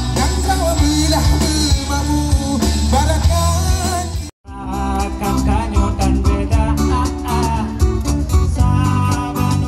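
Live band playing with a singer over amplified guitars. About four seconds in, the sound drops out for a moment and switches to another band strumming acoustic guitars.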